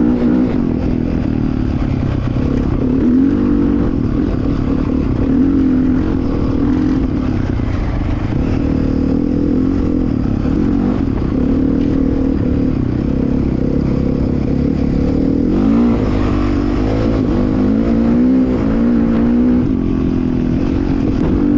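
Dirt bike engine running under way, its pitch rising and falling over and over as the throttle is opened and closed.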